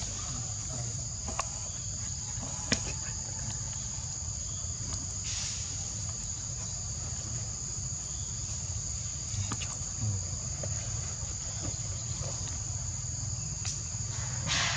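Steady high-pitched insect chorus, a continuous shrill drone, over a low rumble, with a few short sharp clicks, the loudest about three seconds in.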